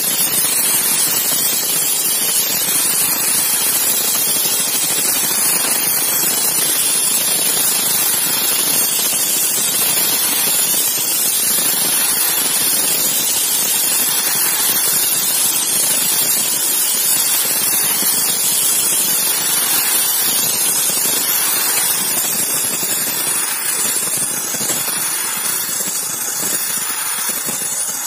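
Air-fed sandblast gun blasting abrasive grit onto a wooden louvred shutter: a loud, steady hiss of air and grit, easing slightly near the end.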